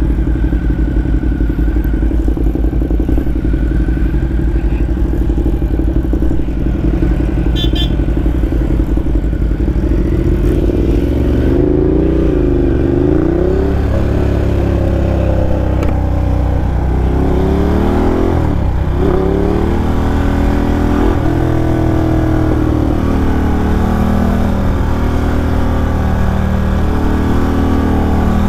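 Ducati Diavel's V-twin engine heard from the saddle while riding. It runs at a steady pitch at first, then from about ten seconds in revs up and drops back several times as the bike accelerates and shifts through the gears.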